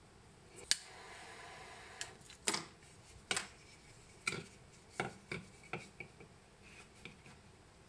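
Small hard objects being handled and set down on a wooden workbench: about a dozen light clicks and knocks at uneven intervals, loudest about a second in and again around two and a half to three and a half seconds in.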